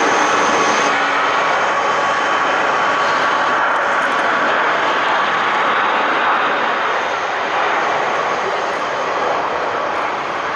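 Boeing 747 Dreamlifter's turbofan engines running loud and steady: a steady whine over a broad rush, easing slightly over the last few seconds.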